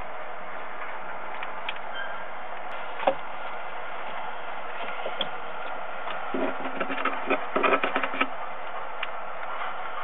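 Steady hiss from a webcam microphone inside a peregrine falcon nest box. About three seconds in there is a single knock, and from about six to eight seconds in a quick cluster of clicks and taps as the falcon moves on the gravel floor and ledge beside its pigeon prey.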